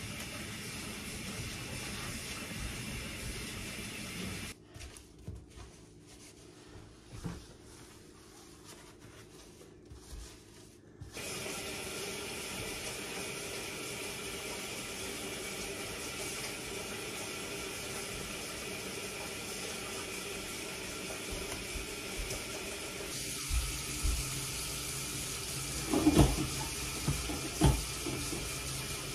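Water running from a sink tap in a steady hiss, cut off about four seconds in and turned on again about seven seconds later. A few knocks near the end.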